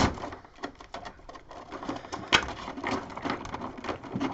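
Old Scalextric set parts handled and sorted in their box: irregular light plastic clicks and rattles, with one sharper click about two seconds in.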